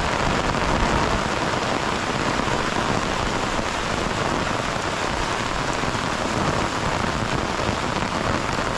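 Torrential monsoon rain pouring steadily onto foliage and a wet road.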